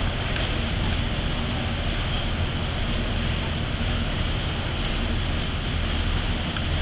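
Steady low engine drone with a constant hiss of wind on the microphone.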